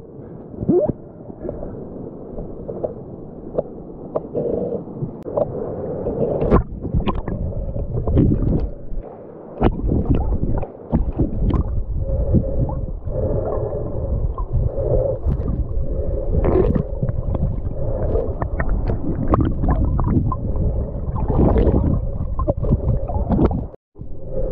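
Underwater sound heard through the camera's housing: a muffled, continuous rush of river water with the gurgling of a diver's exhaled bubbles swelling every second or so, and scattered clicks and knocks.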